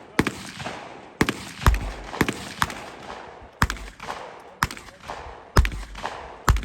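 Gunshots on a competition range: about nine sharp reports at uneven intervals, some louder and deeper than others, as several competitors fire rifles and pistols.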